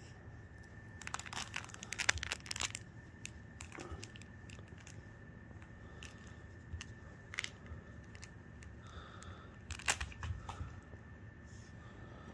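Lhasa Apso puppy gnawing and tugging at a plush toy, with crinkling and crunching clicks in short clusters, busiest about a second in and again near the ten-second mark.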